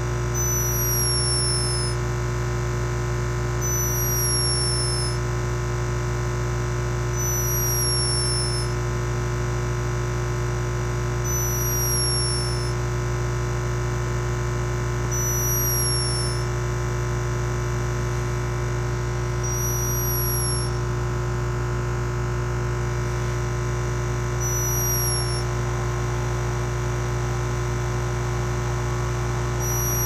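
Steady hum of laboratory oxygen-measurement equipment, chiefly a Sable Systems FoxBox oxygen analyser, with a short high falling squeak recurring about every four seconds.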